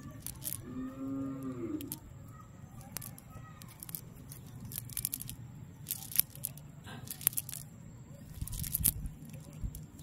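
Rustling and sharp clicks of a wet cast net being pulled and shaken by hand on grass as small fish are picked out of the mesh, scattered irregularly. About a second in there is one short call of about a second, rising and then falling in pitch.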